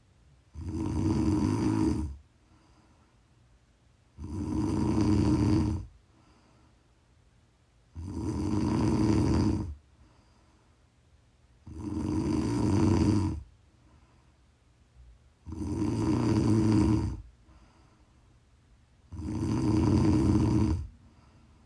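A woman snoring: six snores, each about a second and a half long, coming at an even pace of about one every four seconds.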